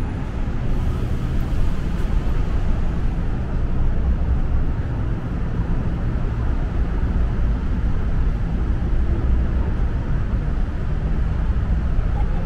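Steady low rumble of outdoor city ambience, even throughout with no distinct events standing out.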